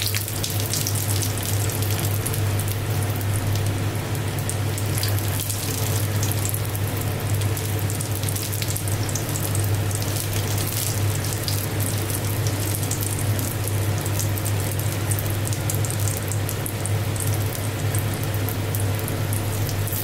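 Sticky rice pancake batter frying in hot oil in a flat pan, a steady sizzle full of fine crackles, over a steady low hum.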